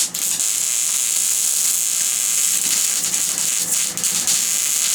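Wire-feed welder arc sizzling steadily as a bead is run, with a brief break in the arc just after the start.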